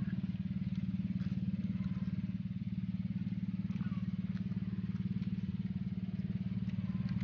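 A small engine running steadily nearby, a low hum with a fast, even pulse that does not change.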